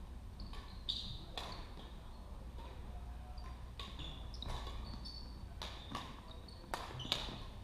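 Badminton rally: a string of sharp smacks of rackets striking a shuttlecock, roughly one every half second to a second, mixed with short high squeaks of shoes on the wooden court floor.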